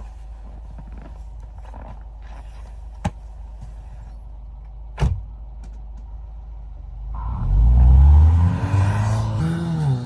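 Subaru Forester SG5's 2.0-litre engine running low and steady with a couple of sharp clicks, then about seven seconds in revving hard, its pitch rising and falling, with a rushing noise alongside, as the car is driven spinning in snow.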